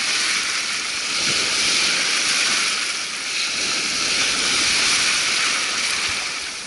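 Surf breaking and washing up a shallow sandy beach: a steady hiss of foaming water that swells and eases.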